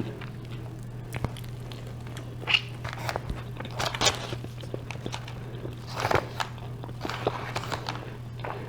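Close-up chewing and biting: irregular wet mouth clicks, smacks and small crunches of a person eating a gyro, over a steady low hum.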